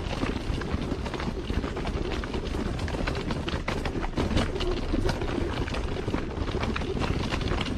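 Footsteps of someone walking on a gravel trail, irregular steps over a steady low rumble.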